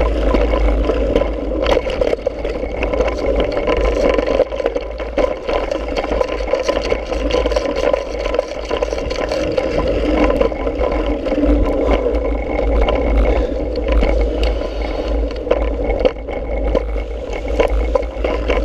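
Mountain bike rolling fast over a dirt trail: tyres crunching on packed dirt and gravel, with the bike rattling and clattering over bumps in many irregular sharp clicks. A heavy steady rumble of wind on the microphone runs under it.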